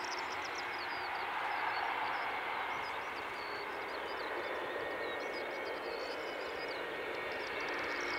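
Boeing 757-223 airliner's Rolls-Royce RB211 jet engines running with a steady rushing sound as the jet rolls along the runway after landing, growing slightly louder near the end as it comes closer.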